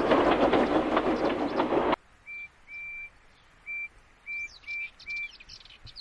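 A steam engine running, cutting off abruptly about two seconds in. Countryside birdsong follows: six short, even whistled notes of one pitch, with faint higher chirps near the end.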